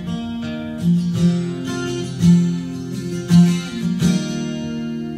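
Acoustic guitar being strummed: a handful of chord strokes, then a final chord about four seconds in that is left to ring.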